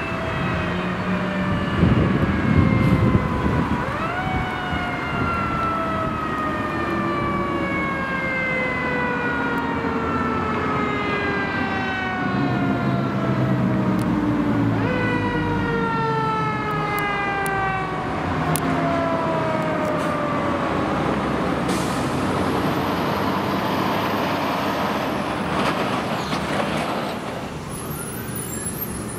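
Fire engine siren in long sweeps, rising quickly and then falling slowly over several seconds; it winds back up about four seconds in and again about halfway through. Underneath is the low rumble of the truck's engine, loudest about two seconds in.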